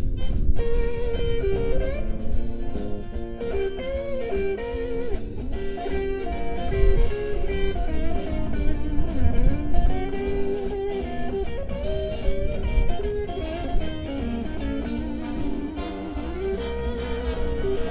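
Electric guitar playing a blues lead line, with frequent string bends and slides, over a bass and drum backing.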